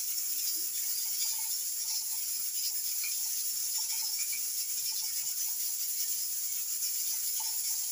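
Steady high-pitched hiss, with a few faint, brief tones scattered through it.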